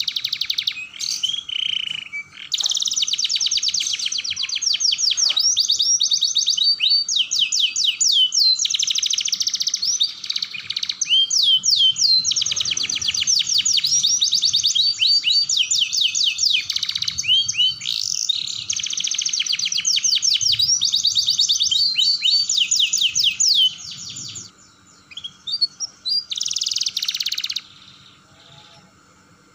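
Domestic canary singing a long rolling song: fast trills of rapidly repeated high notes, with short breaks and some rising and falling sweeps. The song stops about 24 seconds in, with one more short burst a few seconds later.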